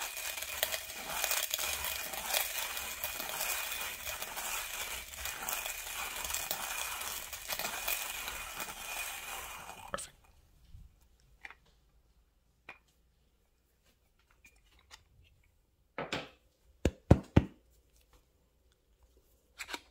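1Zpresso J-Max hand coffee grinder being cranked, its burrs crunching dark-roast espresso beans in a dense, steady crunch. The grinding stops abruptly about halfway through as the last beans pass the burrs, followed by a few sharp clicks and knocks as the grinder is handled.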